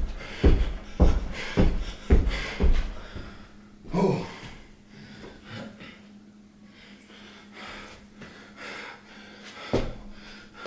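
Heavy breathing of a person working out while sick. For the first three seconds it comes with a run of dull thumps about two a second, a louder thump follows about four seconds in, and then it goes quieter with one more thump near the end.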